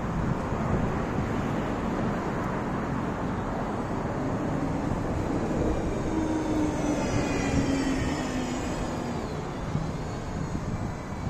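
Road traffic on a multi-lane street, a steady rumble of passing cars. About six seconds in, a vehicle goes by with an engine whine that falls in pitch as it passes.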